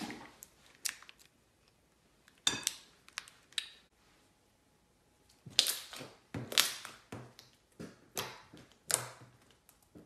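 Sticky glitter slime being stirred, pressed and kneaded by hand, giving a string of sharp wet pops and clicks, about a dozen spread unevenly, several coming in quick bunches.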